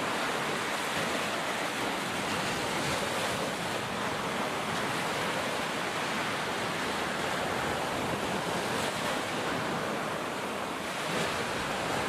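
Ocean surf: waves breaking and washing in a steady, continuous rush.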